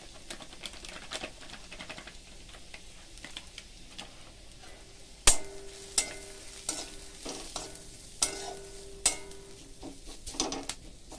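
Onions and ground spices frying with a light sizzle in a metal kadai. From about five seconds in, a metal spatula stirs the mix, scraping and clanking against the pan. The loudest sound is one sharp clank as the stirring starts.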